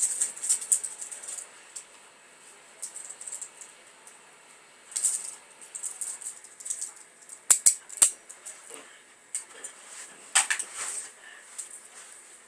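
Toy handcuffs rattling and clinking in irregular bursts as the wearer moves his cuffed hands, with two sharp knocks about halfway through.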